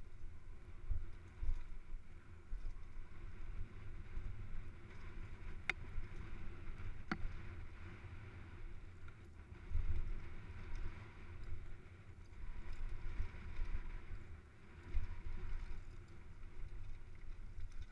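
Rumble and buffeting of air and trail vibration on a helmet-mounted action camera while a mountain bike rides down a dirt singletrack, swelling and fading with the terrain, with two sharp clicks about six and seven seconds in.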